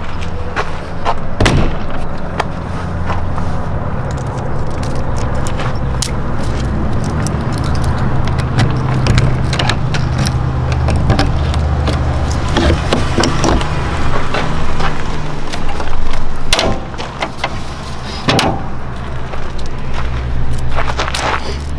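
Travel trailer's entry and screen door being shut, latched and locked: a string of clicks, knocks and a jingle of keys, over a steady low engine hum.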